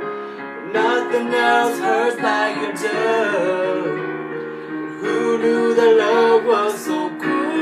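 A man and a woman singing a slow pop ballad duet, with digital piano accompaniment, in phrases of long held notes.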